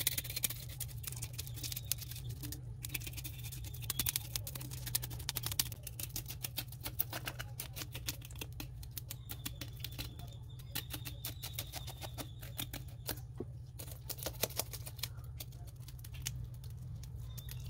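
Kitchen knife blade scraping the scales off a whole mojarra against a wooden cutting board: rapid, repeated scratchy strokes with the scales flicking off.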